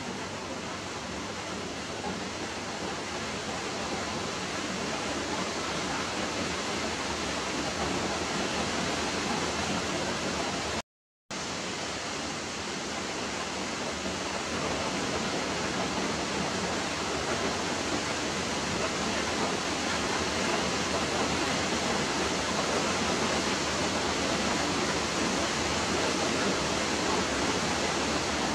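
Steady, even rushing hiss with no distinct sounds in it, growing slightly louder and cutting out completely for a split second about eleven seconds in.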